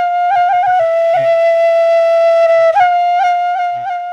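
A solo flute holds one long melody note, ornamented with quick upward grace-note flicks, briefly re-tongued about a second in and again near three seconds.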